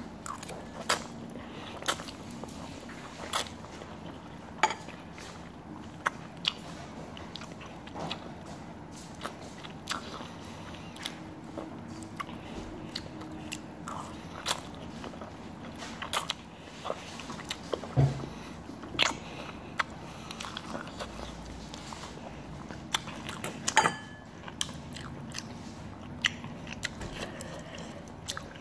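A person chewing and slurping spicy instant ramen noodles, with scattered short clicks and smacks at irregular moments.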